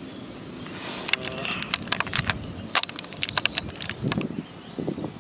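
Clear plastic cake packaging tray crinkling and crackling as it is handled, a quick irregular run of sharp crackles, followed by softer rustling.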